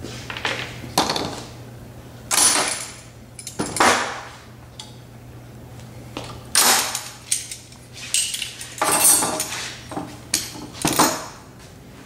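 A series of short scraping and clattering noises, about ten in all, from trimming the rubber mat on a steel cart top with a razor knife drawn along a metal straight edge. A steady low hum runs beneath.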